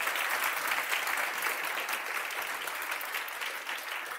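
Audience applauding: many hands clapping together in a steady patter that eases off near the end.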